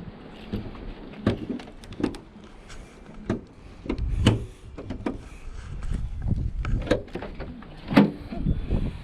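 Handling noises around a car: a string of irregular clicks and knocks, the loudest about eight seconds in, over a low rumble, as the hood and the fuse box are gone into.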